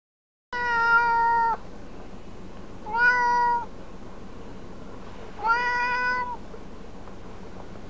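Domestic cat meowing loudly from inside a pet carrier in a car, three long, steady-pitched meows over a constant low car hum, the protest of a cat upset at being driven.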